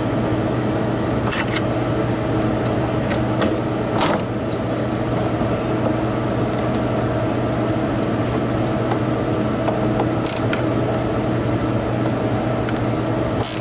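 A steady mechanical hum from nearby running equipment, with a few light metallic clinks from the compressor's mounting bolts and nuts being worked loose by hand.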